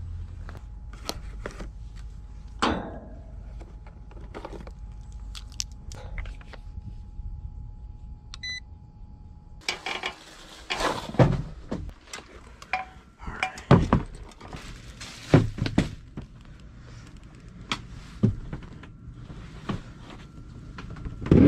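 Assorted knocks, clicks and clatter of things being handled, busier and louder in the second half, with a short electronic beep about eight and a half seconds in.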